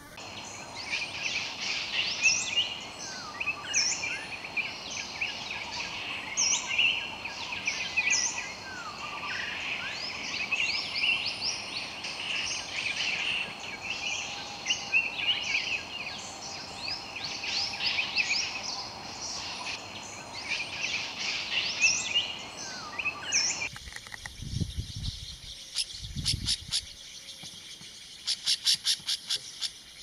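Dense chorus of many small birds chirping and twittering over a steady outdoor hiss. About 24 s in the sound changes: the chorus drops away, two low thumps follow, then a fast rattling trill near the end.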